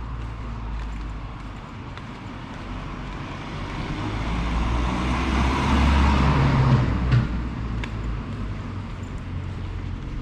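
A motor vehicle driving past close by over a steady low engine hum, growing louder to a peak about six seconds in and then fading away, with a couple of sharp clicks as it goes.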